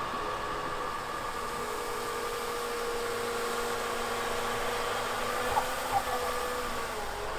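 Volvo EWR150E wheeled excavator running its hydraulic snow sweeper: a steady engine-and-hydraulic whine over a rushing hiss. Two short knocks come about five and a half and six seconds in, and the whine dips briefly in pitch near the end.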